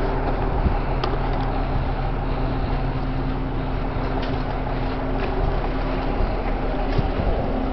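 A steady engine drone, like an idling motor, running at an even pitch with a few faint knocks or clicks on top.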